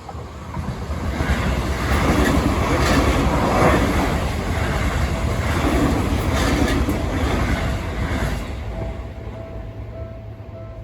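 Seibu Ikebukuro Line train passing through a level crossing: a deep rumble with wheels clacking over the rail joints. It builds from about a second in, stays loud for several seconds and fades after about eight seconds. The crossing's warning bell sounds faintly under it at the start and near the end.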